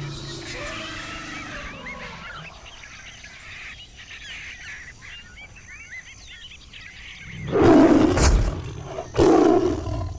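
Jungle ambience of birds chirping, then a tiger roars loudly twice near the end, the second roar following the first by under two seconds.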